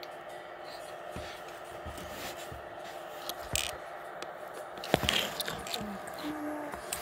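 Handling noise on a handheld phone's microphone: scattered clicks and scrapes of fingers and hair brushing against the phone over a steady background hum, with a louder cluster of scrapes about five seconds in.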